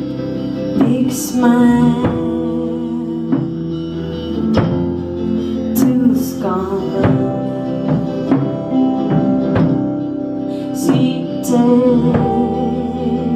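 Live rock band playing: regular drum-kit hits over sustained guitar and bass notes, with a voice singing over them.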